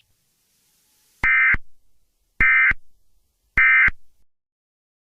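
Emergency Alert System end-of-message signal: three short, harsh bursts of digital SAME data tones, about a second apart, marking the end of the alert.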